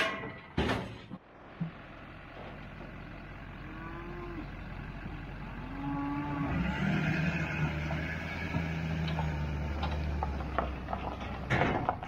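Cattle mooing inside a livestock trailer: a couple of short low calls, then one long moo lasting about four seconds from about halfway through. A couple of sharp knocks sound right at the start.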